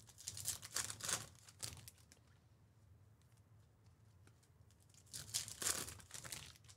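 Foil trading-card pack wrapper being torn open and crinkled in two bursts, one at the start and another about five seconds in.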